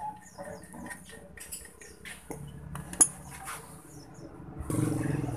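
Light metallic clinks and taps of hand tools and loosened bolt parts being handled on the scooter's engine hanger, with one sharper metal click about three seconds in. A steady low noise comes in near the end.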